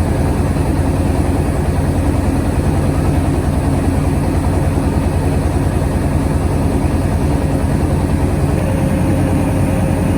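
Engine of a truck-mounted mobile rice mill running steadily with a fast, even pulse.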